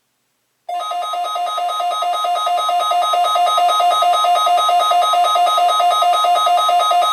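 Weather alert radio receiver's electronic alarm, set off by a weekly test. It warbles rapidly between a low and a high beep, about four times a second, and starts suddenly under a second in.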